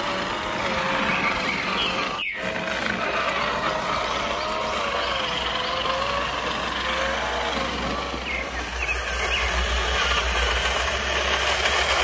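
Truck engine sound running steadily, with a brief sharp cut-out about two seconds in.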